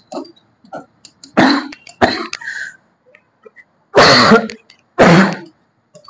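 A man coughing and clearing his throat in four short, loud bouts, two in quick succession about a second and a half in and two more around four and five seconds in.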